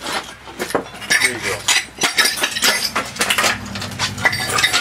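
Irregular knocks and blows with clinking and rattling of broken glass as a CRT television is smashed apart.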